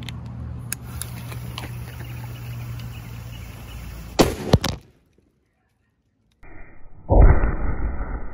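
Steady outdoor background noise with two sharp clicks about four seconds in, then a break of dead silence, then a cherry bomb firecracker going off with a sudden, dull-sounding loud bang about seven seconds in that dies away over about a second.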